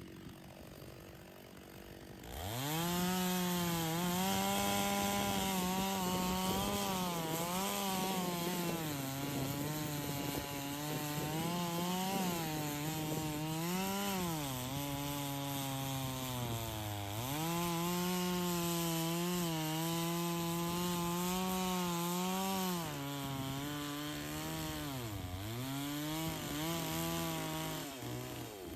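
Stihl chainsaw cutting through firewood logs. About two seconds in it is throttled up to full revs, and its engine pitch sags and recovers several times as the chain bites into the wood.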